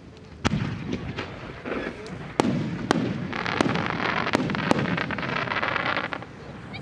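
Aerial firework shells bursting with a series of sharp bangs, about seven in all, the loudest about two and a half seconds in, followed by a few seconds of dense crackling.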